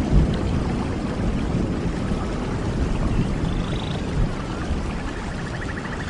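Forest stream flowing, a steady rushing water sound heaviest in the low end, with a few short high bird trills in the second half.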